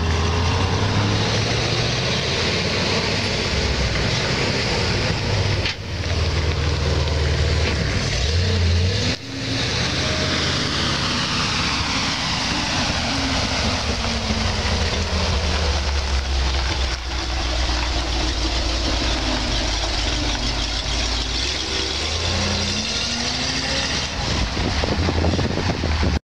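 1975 Ford Louisville (L-series) tanker truck's engine running as the truck drives up close and pulls away, its engine note rising and falling several times with the throttle.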